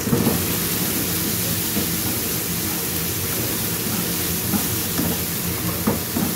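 Blended spice paste sautéing in oil in a frying pan, a steady sizzling hiss, with the spatula scraping and tapping against the pan a few times as it is stirred.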